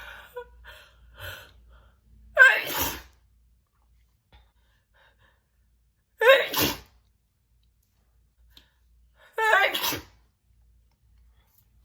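A woman sneezing three times: loud, wet, spitty sneezes, about three and a half seconds apart. Short catching breaths come before the first.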